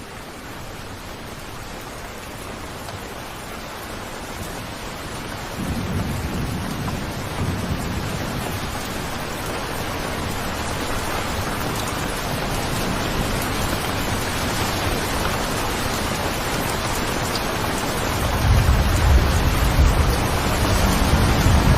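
Steady heavy rain with low rolls of thunder, one about six seconds in and a louder one near the end. The rain grows gradually louder throughout.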